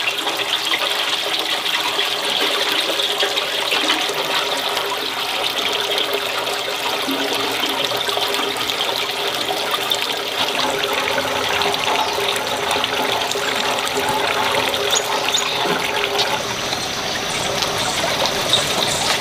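Water running steadily into a large cooking pot, filling it for boiling bánh chưng.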